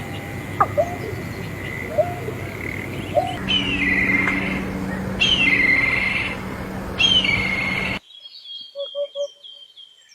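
Birds calling: repeated chirps and falling whistled calls over a noisy background. The background changes abruptly twice, and in the last couple of seconds it is much quieter, with quick groups of short notes and high trilling calls.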